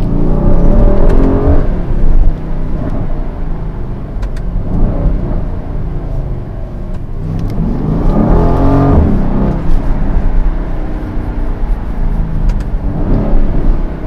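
Mercedes-AMG GLE 63 S twin-turbo V8 accelerating hard, loud. The engine note rises and falls back several times, with its strongest surge about eight seconds in.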